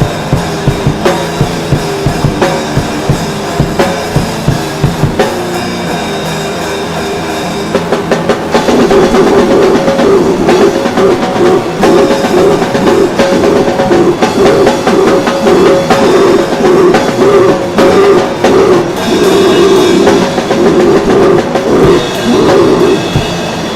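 Rock music played on a drum kit and other instruments. A steady drum beat leads at first, and about eight seconds in the other instruments come in with sustained notes and the music grows louder.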